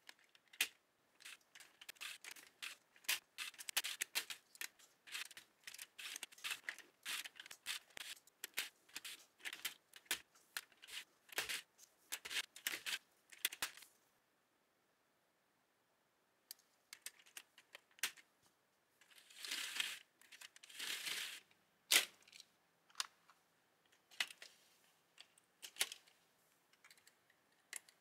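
Lego Technic plastic parts clicking and clacking as beams are handled and fitted onto a tread-link track. The clicks come in quick irregular runs and stop for a couple of seconds about halfway.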